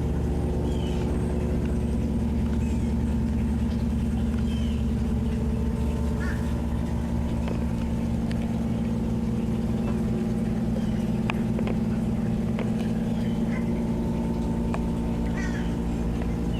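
5.7-litre GI V8 boat engine idling steadily, with short high chirps of birds calling now and then.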